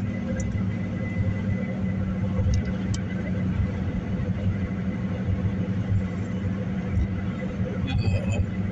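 Steady low rumble of a car being driven, heard from inside the cabin: engine and road noise with an even hum.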